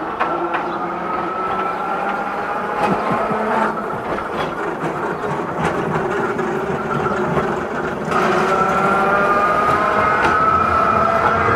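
Narrow-gauge double-deck electric tram running along its track and drawing alongside, a whine drifting slowly in pitch over the rumble of wheels on rail, with occasional clicks. It gets louder about eight seconds in as it comes close.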